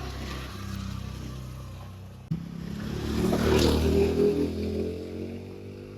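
A motor vehicle engine running steadily, with a sharp click about two seconds in; it then grows louder and eases off near the end.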